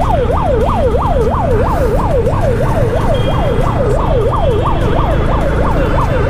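A siren sweeping rapidly up and down, about three times a second, over a steady low rumble of wind and traffic.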